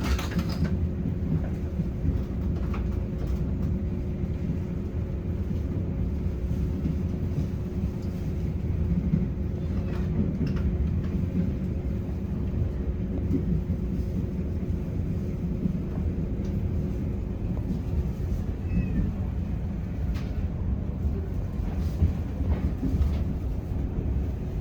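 Running noise inside a coach of a Taiwan Railways PP Tze-Chiang push-pull express train at speed: a steady low rumble with a few faint clicks and a faint steady hum that fades about three quarters of the way through.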